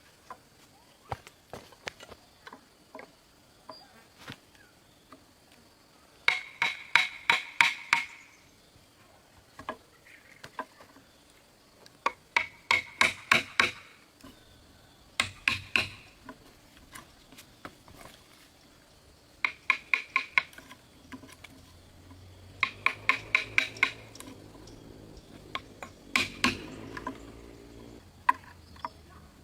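Bursts of quick hammer blows with a metallic ring, each run of several strikes lasting a second or two, with short pauses between runs.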